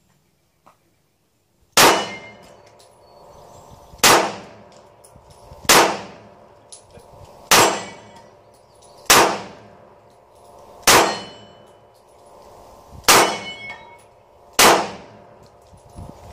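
Pistol fired in slow, single shots, eight in all, about one every two seconds. Each shot is followed by a metallic ringing.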